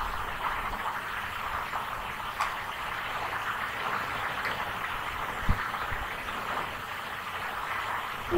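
Steady background hiss, with a faint click about two and a half seconds in and a short low thump about five and a half seconds in.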